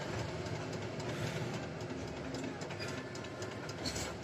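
Steady engine and road rumble heard inside a bus cabin as the coach rolls along, with faint rattles.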